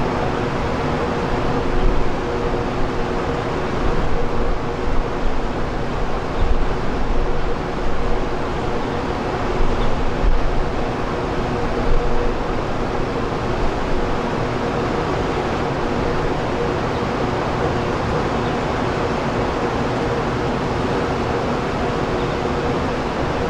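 Steady mechanical hum over a background of noise, with gusts of wind buffeting the microphone in the first half.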